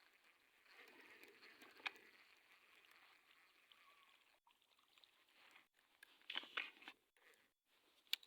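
Near silence with a faint hiss, broken by a few sharp clicks and ticks: one about two seconds in, a short cluster a little after six seconds, and one near the end.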